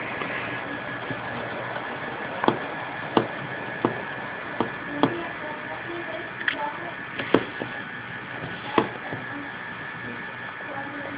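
Model railway trains running: a steady electric hum and whine, with several sharp clicks at irregular intervals.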